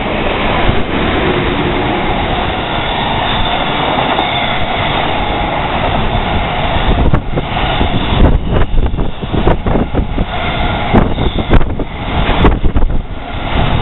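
Container freight train passing through at high speed behind an electric locomotive: a steady loud rush of the train going by. About halfway through it turns to an uneven, choppy clatter of the container wagons' wheels.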